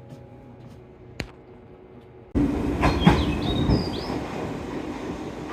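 Quiet station hum with a single sharp click, then a sudden cut to loud train noise: a train running along the platform with its wheels rumbling and a few brief high wheel squeals.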